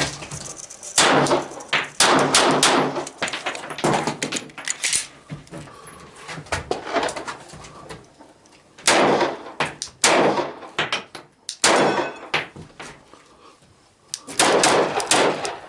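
A string of gunshots, each with a trailing echo. They come in three groups, about a second in, again around nine seconds and near the end, with pauses of several seconds between.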